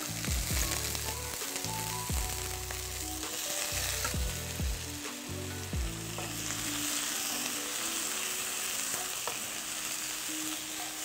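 Boiled chicken feet frying in hot oil with garlic and dried chillies in a wok, sizzling steadily while a wooden spatula stirs them, with occasional knocks and scrapes against the pan. The sizzle grows fuller about halfway through.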